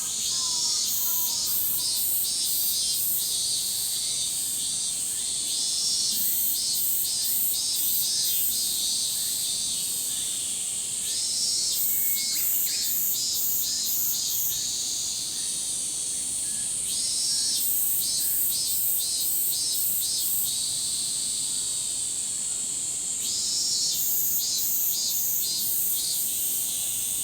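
Chorus of Min-min cicadas (Hyalessa maculaticollis): a steady high-pitched drone, with the pulsing 'min-min-min' phrases swelling in about every five to six seconds and lasting a few seconds each. A faint bird chirps near the start.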